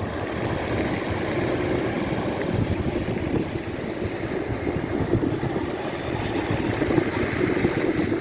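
Sea waves washing on the shore with wind buffeting the microphone: a steady low rumble.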